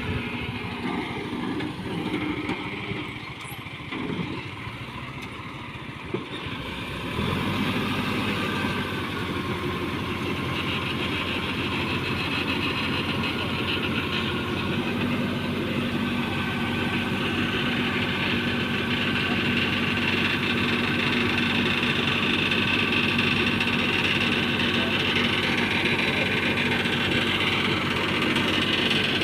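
Massey Ferguson 265 tractor's three-cylinder diesel engine running, quieter at first, then much louder and steady from about seven seconds in.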